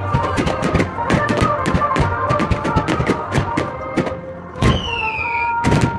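Aerial firework shells bursting one after another, several bangs a second because the recording runs four times fast, over sped-up music from the display. A falling whistling tone sounds near the end.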